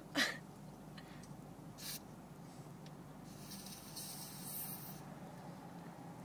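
Butane gas hissing out of a refill canister for about a second and a half past the middle, as it is sprayed into a Zippo lighter. A short sharp sound comes at the start and a brief burst near two seconds, over the steady low hum of an idling car.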